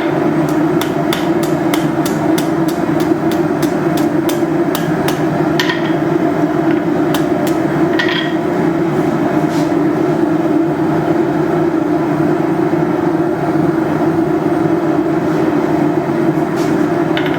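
Blacksmith's hammer striking hot steel on an anvil about three times a second, bending a curve into a bar for a banister hook, with a couple of blows ringing briefly. Under it the forge runs with a steady rush; the hammering stops about ten seconds in and starts again near the end.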